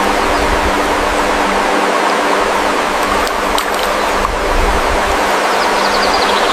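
Loud, steady rushing noise like running water or wind, with a faint steady hum beneath it.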